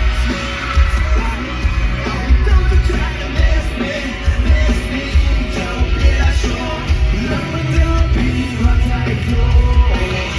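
Live rock band playing loud, with heavy bass and drums and a singer's voice over the band.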